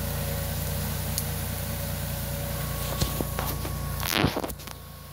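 Small Shire compact tractor's engine running steadily a short way off as it drags a felled tree. Twigs crack, and about four seconds in the tree's branches brush loudly past close by with a rustling swish, after which the engine sounds fainter.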